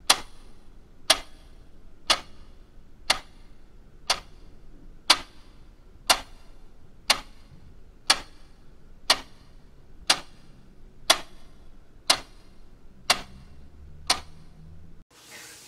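A clock ticking steadily once a second, each tick a sharp click of equal strength. The ticking stops about a second before the end.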